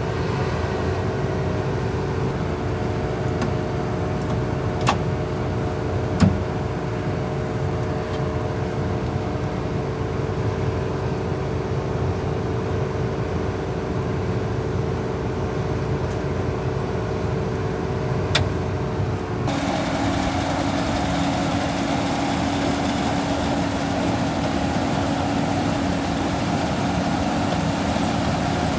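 Vehicle engine running steadily at a constant pitch, with a few sharp clicks. About two-thirds of the way through, the sound changes abruptly to a different engine drone, lower-pitched and with more hiss.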